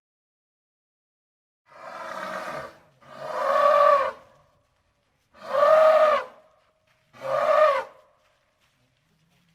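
Asian elephant trumpeting: four calls of about a second each, starting a couple of seconds in, each rising then falling in pitch, the first quieter than the other three.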